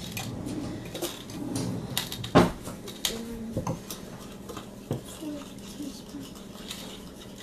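Kitchen utensils clattering: a spoon and dishes clinking and knocking in a handful of sharp, separate clinks, the loudest about two and a half seconds in.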